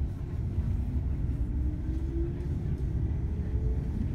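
Shinano Railway 115 series electric train pulling away from a station, heard from inside the car: the traction motors' whine rises steadily in pitch over the low rumble of the running gear.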